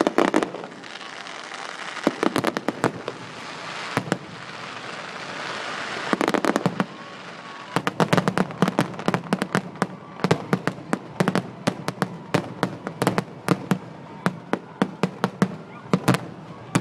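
Fireworks display: clusters of shell bursts with a crackling hiss between them, then from about eight seconds in a rapid barrage of bangs, several a second.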